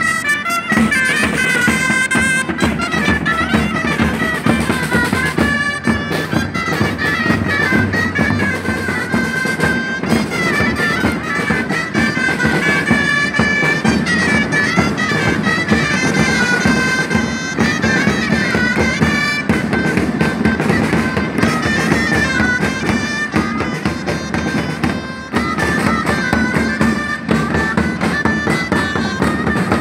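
Gralles, the Catalan double-reed shawms, playing a reedy melody over steady beating on rope-tensioned marching drums.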